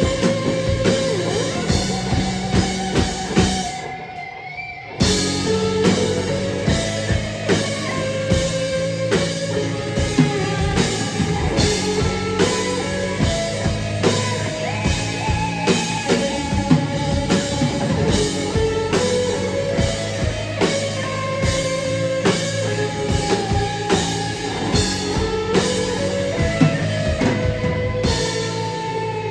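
Rock band playing live: drum kit and electric guitar. The drums drop out for about a second around four seconds in and come back hard, then stop near the end, leaving the guitar ringing.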